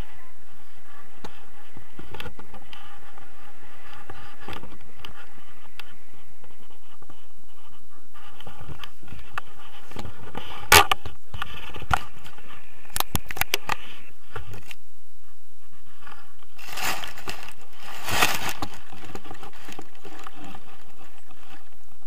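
Rattling, clicking and scraping of a harness-mounted action camera and paraglider harness during a tandem landing, over steady rushing noise. The sharpest knocks come around the middle, and a rougher rustling burst comes near the end.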